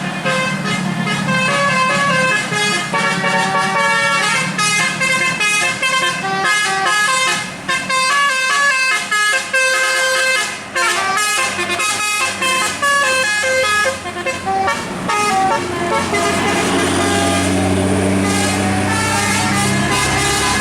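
Indonesian bus telolet horn, a multi-trumpet air horn, playing a long, quick melody of stepping notes. A few seconds before the end the melody stops and a low engine note rises.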